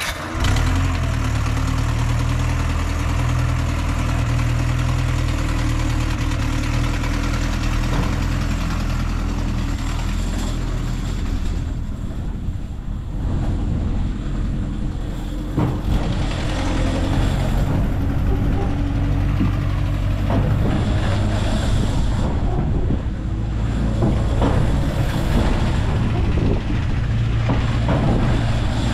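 Garbrick Merry Mixer scrambler ride starting up and spinning: its drive machinery starts abruptly and runs with a steady low hum, under a rushing noise and occasional knocks from the moving ride.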